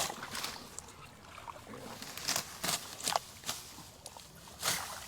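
Hands and feet working in shallow muddy water while digging out an eel hole: irregular splashes and squelches, about seven in five seconds.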